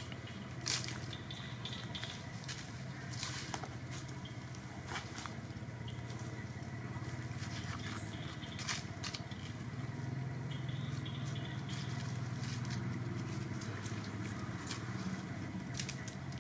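Outdoor ambience: a steady low hum with scattered sharp clicks and light crackles.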